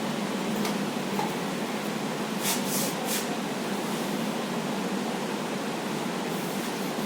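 Steady hiss of background room noise, like an air conditioner or fan, with three brief hissy rustles about two and a half to three seconds in.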